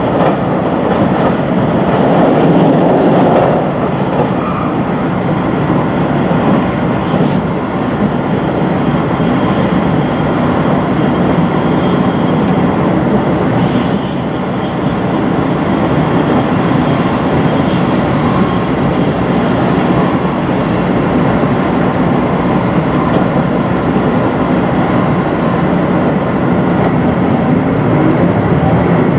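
Inside the passenger car of a HOT7000-series diesel express train running at speed: a steady rumble of wheels on the rails mixed with the drone of the diesel engines.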